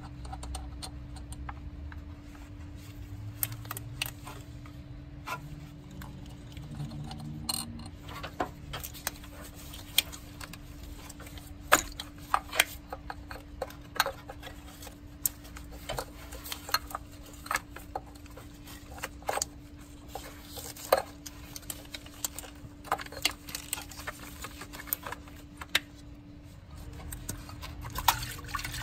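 Scattered clicks and metallic clinks from a socket ratchet and the 10 mm thermostat-cover bolts being undone and handled, over a steady low hum.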